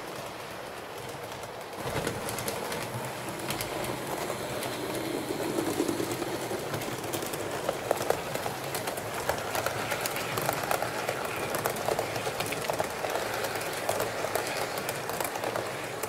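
HO scale model train running along the track, its wheels clicking over the rail joints, getting louder about two seconds in.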